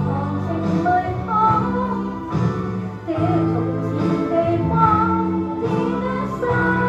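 Woman singing a slow pop ballad into a microphone over instrumental accompaniment, amplified through the hall's speakers. Her longer held notes waver with vibrato.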